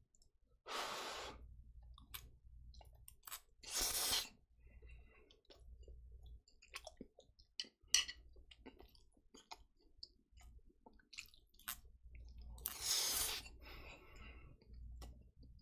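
Close-miked eating of jjapaghetti, black bean sauce instant noodles: wet chewing with scattered small clicks of chopsticks and spoon against the pan, and three louder slurps of noodles, about one second in, about four seconds in and near the end.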